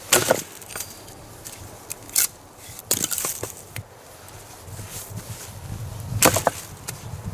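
Dry firewood being broken up: a handful of sharp, irregular cracks of wood, the loudest about six seconds in.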